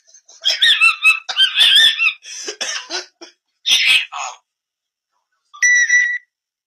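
African grey parrots squawking and calling in a run of high, wavering calls, then a single short steady whistle about a second before the end.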